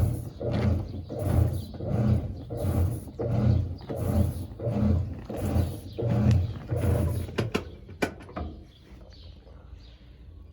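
GE Imagination 10 kg top-loading washing machine agitating: a low motor hum with water swishing, in even strokes about one every 0.7 s. Near the end there are a few sharp clicks and the agitation stops.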